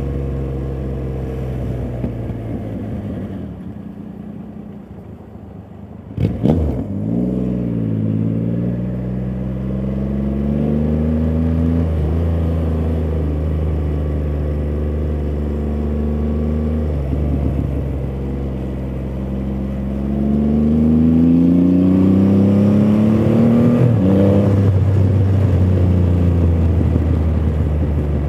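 Triumph Rocket 3 GT's three-cylinder engine through a Vandemon titanium exhaust, under way on the road. It runs low and steady, gives a sharp crack about six seconds in, and then climbs in revs. It pulls up through the revs again later, with a drop at a gear change near the end.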